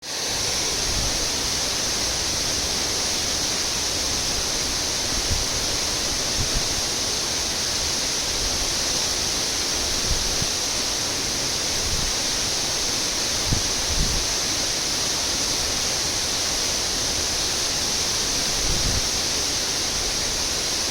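Waterfall: a steady, unbroken rush of falling water, strongest in the hiss, with a few brief low thumps now and then.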